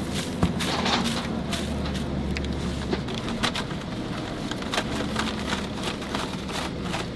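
Hot frying oil sizzling steadily, with many small crackles and pops.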